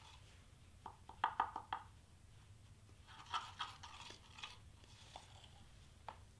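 A metal spoon stirring and scraping flock powder in a small jar, faint: two runs of quick clinks and scrapes, then a couple of single taps as the spoon scoops out powder.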